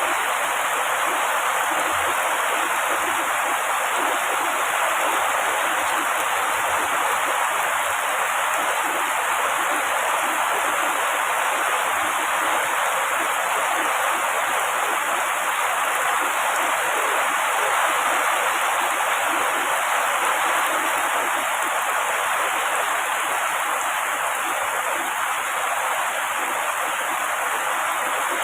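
Heavy rain falling steadily on tree foliage, an even, unbroken hiss with no thunder.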